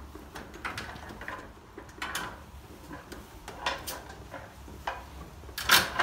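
A blue plastic feeder bucket is unhooked from a goat pen's wire panel: a string of irregular knocks and rattles, with the loudest clatter near the end.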